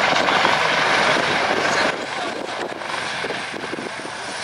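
U.S. Coast Guard MH-65D Dolphin helicopter's twin turbine engines and rotors running as it hovers low over the runway and sets down. The steady noise drops in level about two seconds in.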